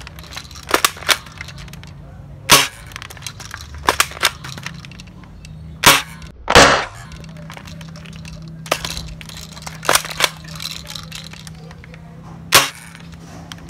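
D'Cobra M15 spring-powered airsoft rifle being shot repeatedly: several loud sharp snaps a few seconds apart, with smaller clicks between them.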